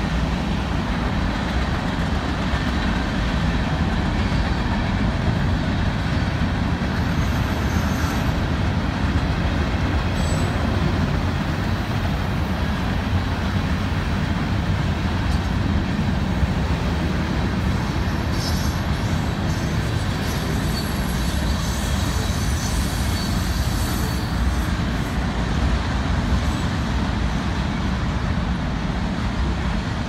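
Freight train cars rolling past: a steady, unbroken rumble of steel wheels on rail.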